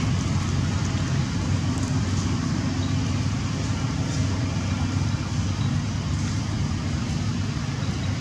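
Steady low rumble of motor traffic with a faint hum, unchanging throughout.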